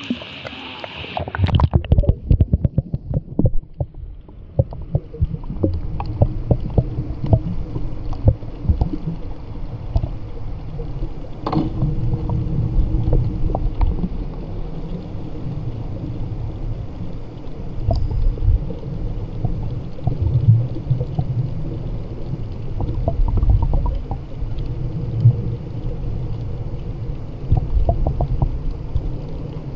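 A camera dips below the sea surface about a second and a half in. From then on the sound is muffled and underwater: a low rumble of moving water with many clicks and knocks.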